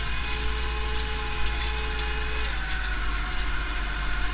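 Pronar 82SA tractor's diesel engine running steadily under load while pulling a seedbed cultivator, heard from inside the cab. Its note shifts slightly about two and a half seconds in.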